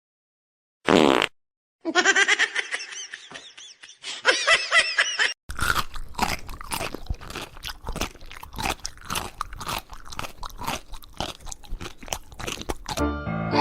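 Rapid crunching, like chewing, many crunches a second through the second half. It comes after a few seconds of short pitched sounds that bend up and down.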